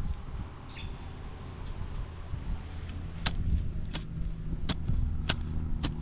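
Hand trowel chopping into dry, clumpy soil: sharp knocks about every two-thirds of a second from about halfway through, over a low rumble. A steady low motor hum comes in at about the same time.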